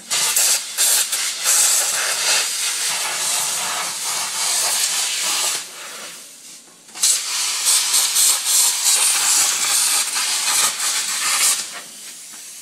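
Harbor Freight 240 V inverter plasma cutter's torch cutting sheet steel: a loud, steady hiss of the arc and compressed-air jet. It stops about six seconds in, restarts a second later, and cuts off shortly before the end.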